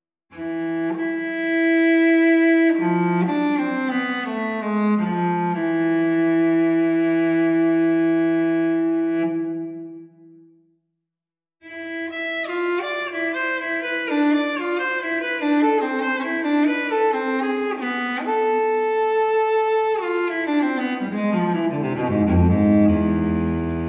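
Solo cello music: slow, long bowed notes, a pause of about a second in the middle, then quicker-moving notes that sink to deep low notes near the end.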